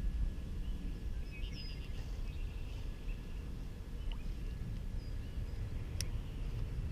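Outdoor ambience: a steady low rumble, a short run of bird chirps about one and a half seconds in, and a single sharp click near the end.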